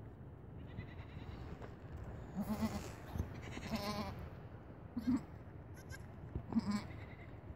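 Goats calling: a nanny goat and her newborn kid. There are about four short, low calls, and near the middle two longer bleats with a quaver in the pitch.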